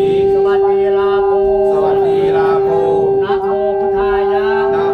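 Music built on a loud steady drone note held throughout, with a wavering melody and some singing above it.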